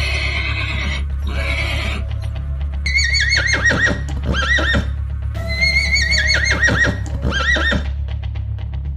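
A horse whinnying twice. Each neigh starts high, then falls into a long, shaky, wavering call. Two short rough noise bursts come before the whinnies.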